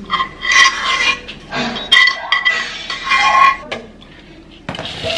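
A utensil scrapes and clinks against a pot as melted chocolate is emptied into a mixing bowl, in irregular bursts with a couple of sharp clinks about two seconds in. It dies down near the end.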